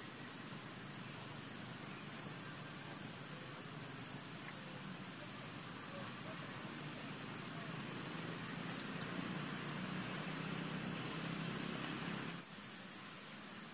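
Insect chorus in the trees: a steady, high-pitched drone that holds one pitch throughout, over a low background rumble that cuts off near the end.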